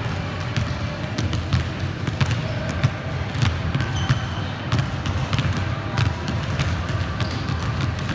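Basketballs bouncing on a hardwood gym floor, many irregular thuds overlapping from several balls, with running footsteps.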